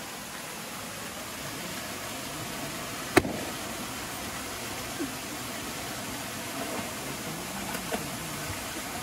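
Small waterfall pouring steadily into a pool, with a single sharp pop about three seconds in as a balloon bursts, and a few fainter knocks afterwards.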